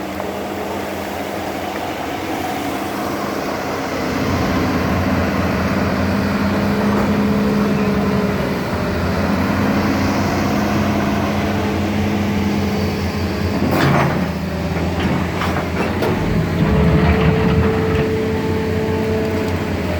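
Hitachi hydraulic excavator's diesel engine running steadily, picking up load about four seconds in. A sharp metallic knock comes near the middle, followed by a few smaller knocks, and a higher steady whine joins over the last few seconds.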